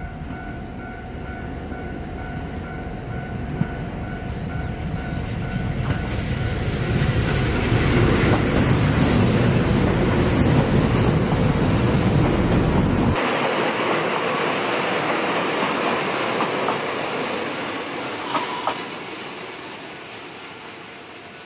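JR Hokkaido H100 "DECMO" diesel-electric railcar running past close by, its engine and wheels on the rails growing louder to a peak in the middle. About 13 seconds in the deep rumble cuts off abruptly, and a thinner, quieter train sound carries on, fading near the end.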